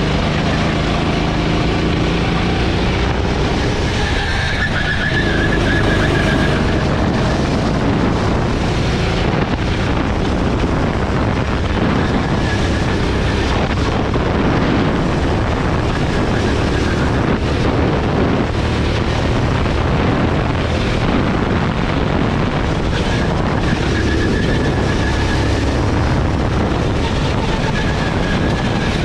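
Gasoline go-kart engine running hard through a lap, its revs rising and falling through the corners, under a steady rush of wind on a helmet-mounted camera.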